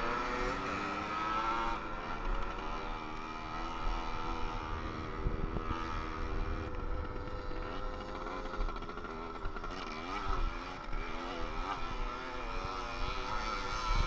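Small two-stroke moped engine with a non-stock exhaust revving hard, its pitch rising and falling over and over as the throttle opens and closes. Wind rumbles on the microphone underneath.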